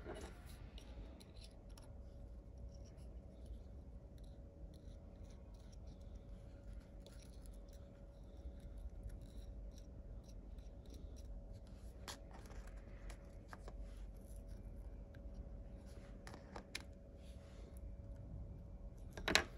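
Faint scraping and light clicking of a small carving tool's metal blade as it presses and packs coffee grounds into a small hot-glue mold, with a sharper click near the end. A faint steady hum runs underneath.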